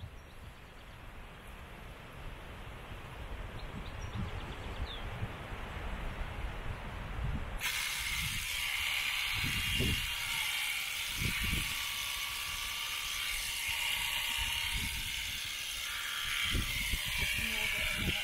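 Shearing handpiece running and cutting alpaca fleece, with low knocks from handling. Its hiss gets suddenly louder and higher about eight seconds in.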